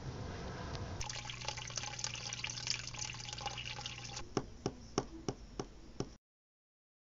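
Water sound effect: a crackling trickle over a steady hum, then a run of single drips about three a second, cutting off to silence.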